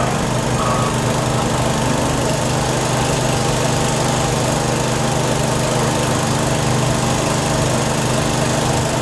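A small engine running steadily at a constant speed, with no revving.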